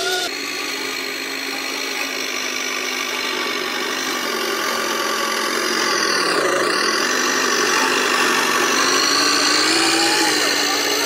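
Radio-controlled 6x6 truck running through deep snow, its motor giving a steady hum. The sound briefly dips and swings back as the truck passes close about six seconds in, and rises slightly in pitch near the end.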